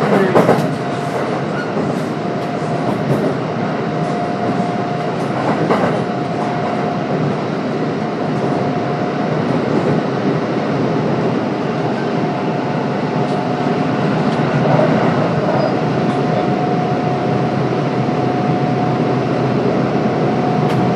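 Running noise of a Kintetsu 1031 series electric train with Hitachi GTO-VVVF drive travelling between stations: a steady rumble of wheels on rail with a steady whine throughout, and a few sharp clicks of the wheels over rail joints.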